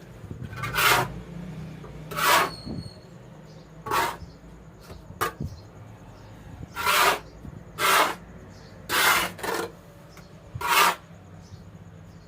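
Damp sand being stirred and scraped to work turmeric water into it, heard as about eight short rasping strokes a second or so apart.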